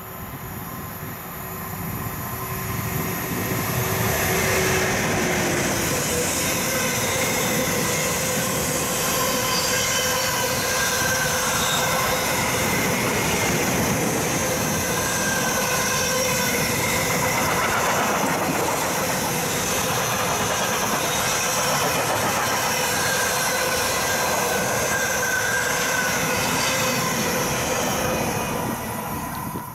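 Freight train hauled by a DB class 152 electric locomotive passing: the rolling noise of wheels on rail swells over the first few seconds as the locomotive nears, then holds steady as the container and tank-container wagons go by, with a thin high whine coming and going.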